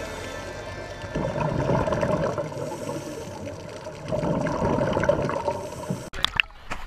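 Exhaled bubbles from scuba divers heard underwater, a bubbling hiss that swells twice a few seconds apart. Near the end it cuts abruptly to a few sharp splashes of water.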